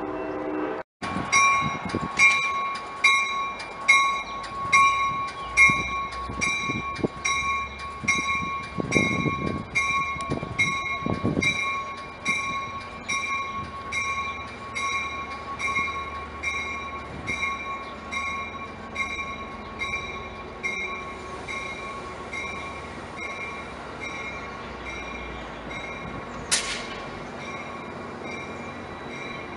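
A passenger train's bell rings steadily, a little faster than once a second, as Amtrak California bilevel cars roll slowly along the platform. The ringing fades in the last third. A brief high squeal near the end is typical of wheels or brakes.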